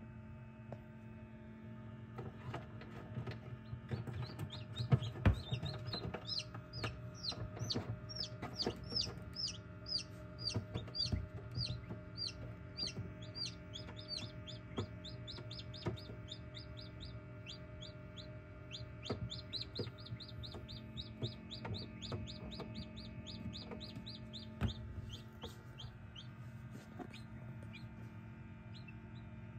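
Newly hatched chicken chicks peeping in an incubator: a rapid run of short, high, falling peeps, several a second, starting about two seconds in, over a steady low hum.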